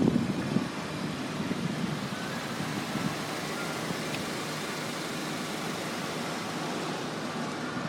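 Steady background road-traffic noise, an even rushing hum with no distinct events.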